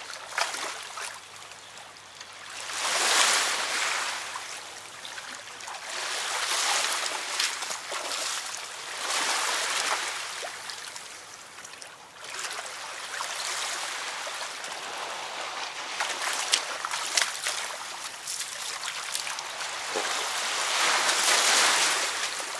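Small river waves washing onto a sandy bank, swelling and falling back every few seconds.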